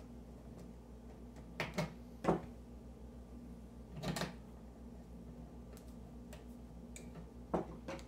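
Handling noise of pliers and copper wires being worked in a metal switch box while neutral wires are joined with a wire connector: a few sharp clicks and knocks, two close together about a second and a half in, a stronger one soon after, a short cluster about four seconds in and two more near the end, over a low steady hum.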